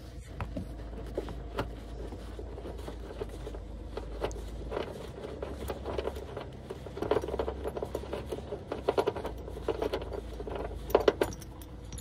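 Light metallic clinking and scattered clicks of a socket wrench and loosening bolt, as a 16 mm bolt at the base of a seat belt is unscrewed. The rattles bunch up around seven seconds in and again near the end.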